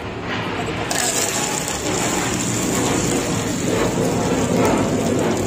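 Hot oil in a clay pot sizzling hard as curry leaves and chillies are dropped onto spluttering mustard and cumin seeds. The sizzle jumps up sharply about a second in and then stays steady.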